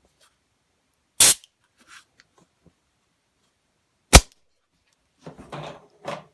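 Two sharp cracks from an HPA-fed airsoft gas blowback magazine and pistol being handled: a short burst about a second in and a louder, very short snap a few seconds later, followed by lighter clattering near the end.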